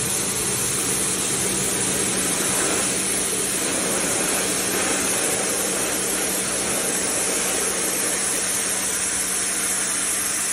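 Pressure washer running steadily: an even hum from the machine under the continuous hiss of its water jet hitting wet wooden beams.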